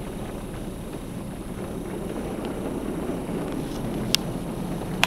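Automatic car wash spraying water and tri-foam over a car, heard as a steady rushing noise muffled through the car's cabin. A sharp click sounds about four seconds in and another at the end.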